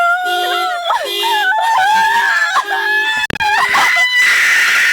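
Car alarm sounding the horn in short, evenly spaced honks, a little faster than one a second, with people screaming loudly over it. The screaming climbs to a higher, sustained shriek near the end.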